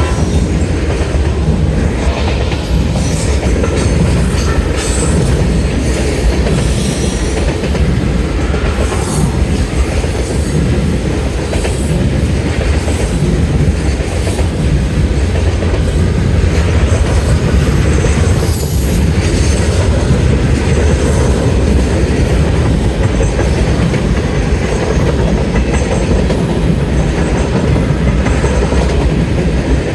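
CN freight train's cars rolling past, a steady rumble with the wheels clicking and clattering over the rail joints and a brief high wheel squeal about two-thirds of the way through.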